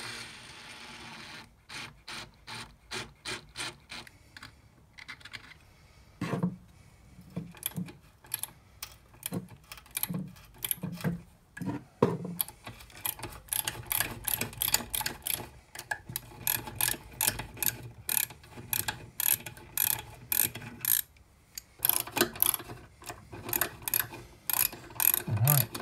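Ratcheting T-handle tap wrench clicking in runs as a straight-flute tap is turned by hand into a hole in steel. A brief steady whirr comes at the start, and the clicking pauses briefly twice.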